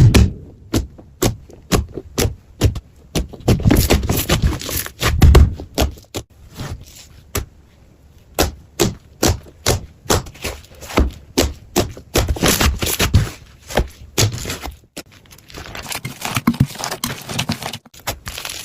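Slime being squished and poked by hand, giving a run of sharp clicking pops with scraping and crackling between them. For a stretch in the middle the pops come evenly, about two a second.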